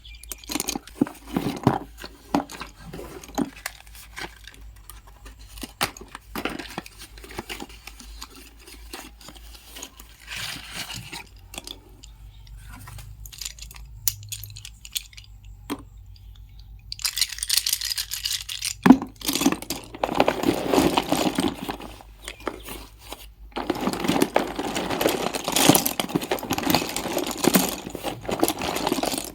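Close-up handling of a box of slate pencils: scattered sharp clicks and taps for the first half, then two long stretches of dense tearing and crinkling.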